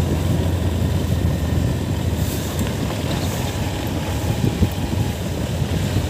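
Wind buffeting a phone's microphone while walking: a steady, fluttering low rumble with an even hiss above it.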